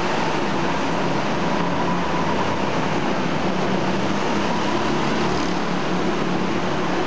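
Go-kart engines running as several karts lap a track, a steady drone whose engine notes waver up and down.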